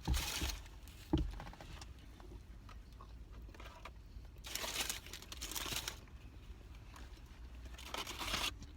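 Paper fast-food packaging crinkling and rustling in a few short bursts, with a light knock about a second in.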